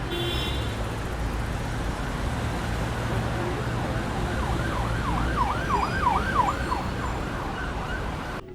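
Road traffic rumbling steadily, with an emergency vehicle's siren yelping rapidly up and down, about two or three sweeps a second, for a few seconds in the second half. The sound drops off sharply just before the end.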